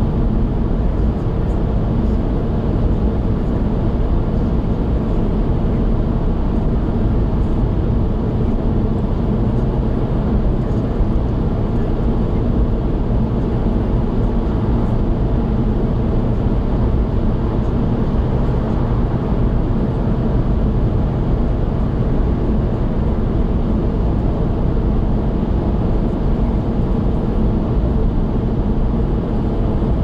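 Car driving at steady expressway speed through a road tunnel, heard from inside the cabin: a constant low rumble of tyres and engine that does not change.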